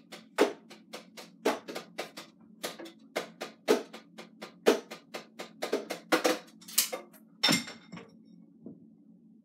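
Drumsticks tapping the rubber pads and cymbal pads of an Alesis electronic drum kit, heard without the kit's sounds because they go to the player's headphones: an uneven run of sharp taps, about three or four a second, that stops about eight seconds in.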